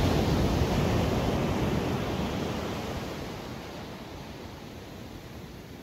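Pacific surf breaking and washing up a sandy beach, a steady rush of noise that fades away after about two seconds.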